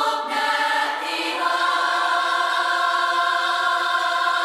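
Choral music: voices holding one long, steady chord.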